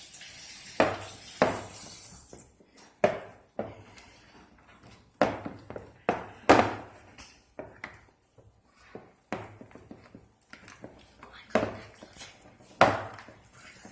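Fluffy shaving-cream slime being stirred and squished in a bowl: irregular sharp squelches and clicks, about one a second.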